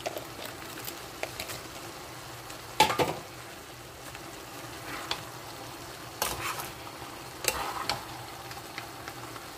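Vegetable sauce sizzling in a pan on the stove, with a spoon and tongs knocking against the pan as fried fish pieces are added and stirred in. The loudest knock comes about three seconds in, with more around six and seven and a half seconds.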